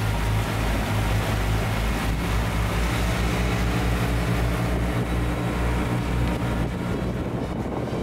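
The motor of an open tour boat running steadily at cruising speed, a low, even drone. Wind buffets the microphone and water rushes past the hull.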